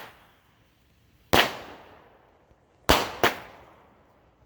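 Consumer 200-gram firework cakes firing in sequence: a sharp bang about a second in, then two more in quick succession near the three-second mark, each fading off with a short echoing tail.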